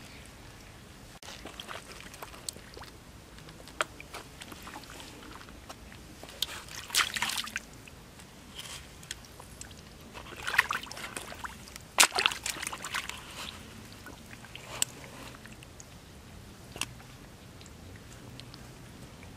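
Hands sloshing and digging through shallow muddy puddle water, with several short bursts of splashing and a few sharp clicks, the loudest about twelve seconds in.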